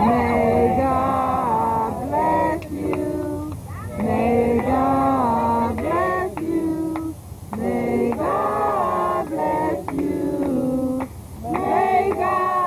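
A group of people singing together in short phrases of held notes, with brief breaks between them.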